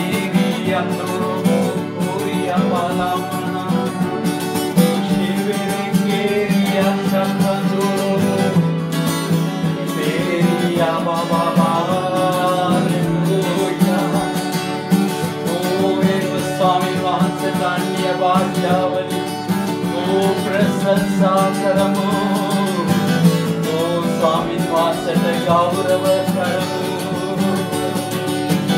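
Worship song: acoustic guitar strumming steadily under singing.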